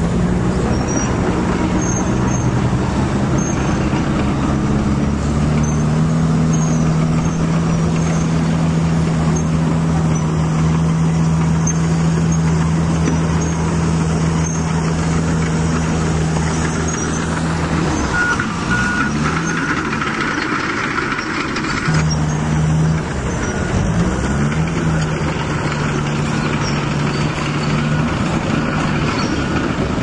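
Excavator diesel engine sound running at a steady low note. Past the middle the note drops out for about four seconds, with a couple of brief dips in pitch, then comes back steady.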